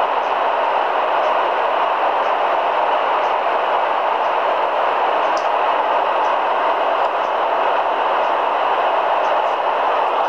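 Steady static hiss from a Grundig G4000A shortwave receiver's speaker, tuned to 27.820 MHz with no station transmitting, with a few faint clicks.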